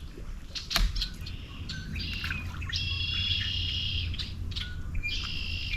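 A songbird singing three high, buzzy phrases of about a second each, over a low steady rumble, with one sharp click about a second in.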